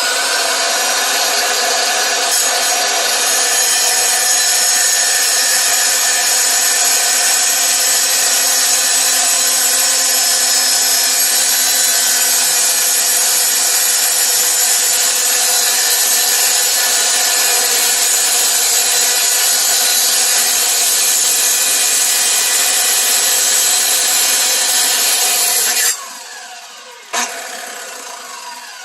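Power saw cutting through a rock, a loud steady grinding whine. About three seconds before the end it cuts off sharply, followed by a short burst and a fading whir as the blade winds down.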